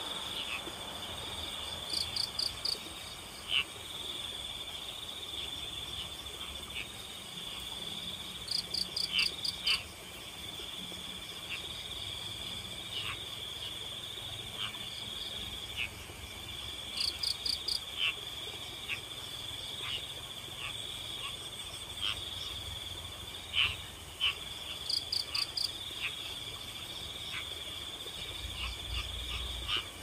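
Night insect chorus of crickets: a steady high trill, with a louder burst of four or five quick chirps every seven or eight seconds, and scattered short clicking calls in between.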